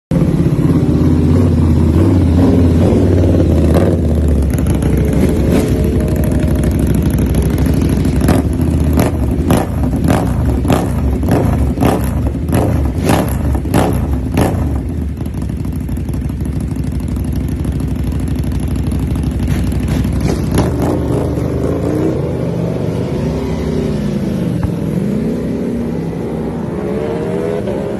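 KTM 1290 Super Duke's V-twin engine being revved repeatedly and loudly, with a run of sharp pops about two a second in the middle and climbing revs near the end.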